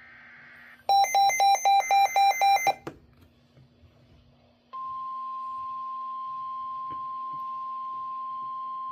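NOAA weather radio receiver sounding a tornado warning alert. A brief burst of data noise at the start is followed by the radio's own alarm, which beeps rapidly for under two seconds. From about five seconds in, the steady single-pitch warning alarm tone sounds, announcing the tornado warning that follows.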